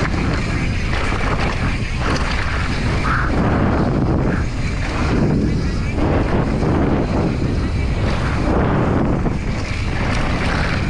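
Downhill mountain bike ridden fast over a dirt trail: wind buffeting the microphone over the rush of knobby tyres on dirt and the constant clatter of the bike over bumps.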